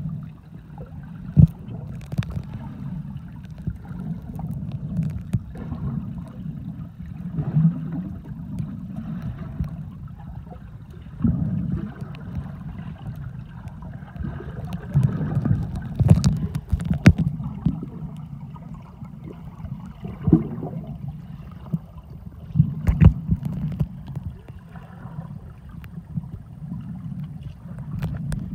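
Muffled underwater water noise picked up by a submerged phone: a low, rumbling wash with gurgles, broken several times by sharp knocks.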